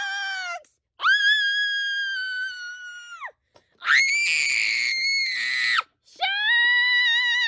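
A child squealing in play: four long, high-pitched held cries of one to two seconds each, the third one rough and harsh.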